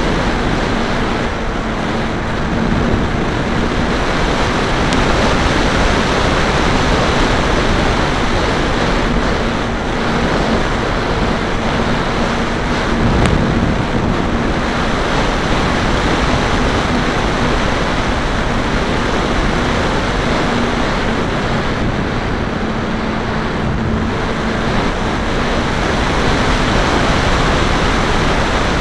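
Wind rushing hard over a camera microphone mounted on a small electric RC biplane in flight, with a steady low hum from its electric motor and propeller underneath.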